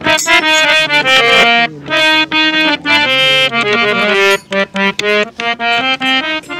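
Harmonium playing a melodic instrumental interlude of short, changing notes, with dholak drum strokes beating along under it.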